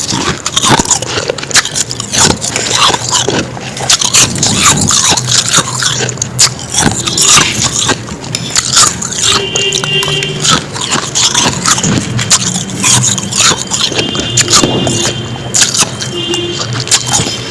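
Close-miked biting and chewing of powdery frost ice: dense, irregular crunches with no pause.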